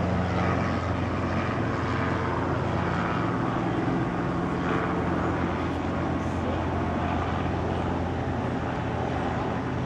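Light single-engine propeller airplane's engine running with a steady drone.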